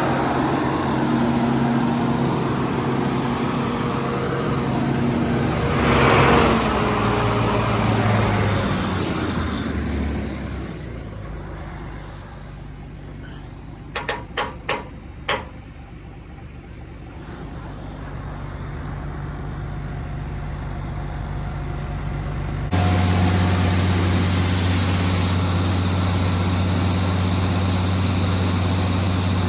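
Heavy farm machinery engine running: it swells to a loud peak about six seconds in, then a falling whine as it fades to a quieter stretch with four sharp clicks. Near the end the sound jumps suddenly to a steady, low engine idle.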